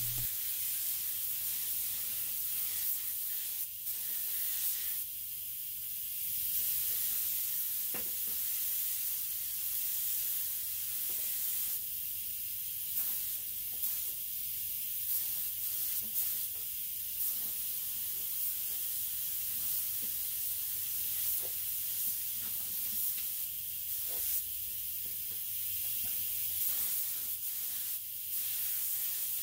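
Neiko 31207A mini HVLP gravity-feed spray gun hissing steadily as it sprays base coat in passes.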